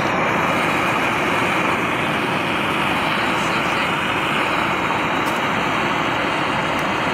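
Handheld gas blowtorch running steadily, its flame blowing into a short pipe, a loud even rush of burning gas throughout.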